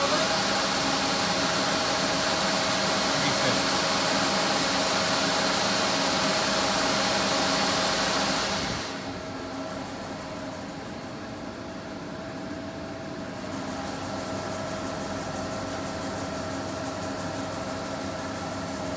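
Mori Seiki ZL-35 CNC lathe running with its chuck spinning: a steady machine hum under a rushing hiss. About eight seconds in, the hiss drops away and the sound gets quieter, leaving the steady hum.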